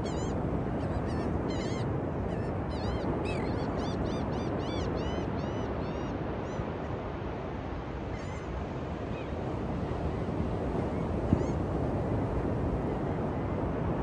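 Steady ocean surf with wind noise. Over it a flock of birds calls: short, arched calls come quickly for about the first seven seconds, then only a couple more. A single brief bump comes about eleven seconds in.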